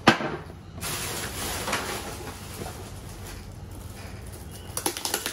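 A sharp knock, then rustling of packaging and gift wrap being handled while items are taken from a box.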